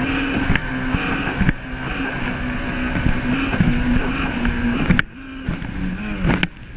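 Kawasaki jet ski engine running at a steady cruise under a haze of water and wind noise, with a few short knocks. About five seconds in the level drops and the engine note falls lower as the throttle eases, then it picks up again near the end.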